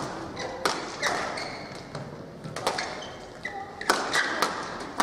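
Badminton doubles rally: rackets striking the shuttlecock with sharp cracks, about eight in quick succession, ringing in a large hall, with court shoes squeaking on the floor in between.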